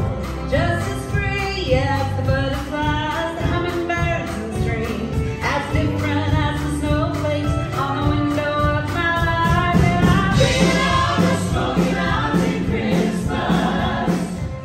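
A mixed vocal group of men and women singing together in harmony, backed by a live band with electric bass, guitar and a steady drum beat.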